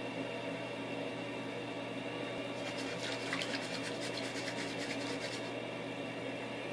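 A steady machine hum in a small room. About two and a half seconds in, a crackly, rustling noise with rapid ticks joins it for about three seconds.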